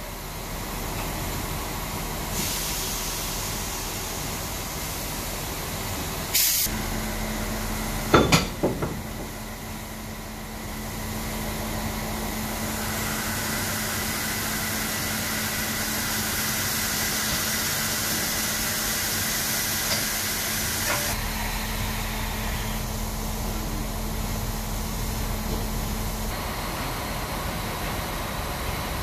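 Ol49 steam locomotive standing at the platform, hissing steam steadily, with the hiss swelling louder through the middle. Two loud metallic clanks about six and eight seconds in.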